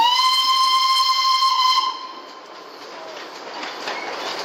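Darjeeling Himalayan Railway toy train's locomotive whistle: one shrill blast about two seconds long that slides up in pitch as it starts, then holds steady and stops. After it, the train's running noise carries on, growing a little louder near the end.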